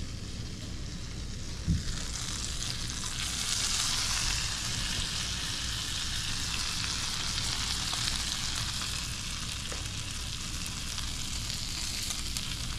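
Squirrelfish fillets frying in melted butter in a cast iron skillet, sizzling steadily. A short knock comes just before the sizzle starts, about two seconds in, and the sizzle is loudest a few seconds later as more fillets go into the pan.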